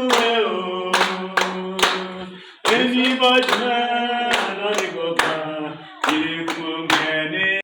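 A group of people singing a song together and clapping along in a steady beat, about two claps a second. The singing breaks off briefly twice, near the middle and about six seconds in.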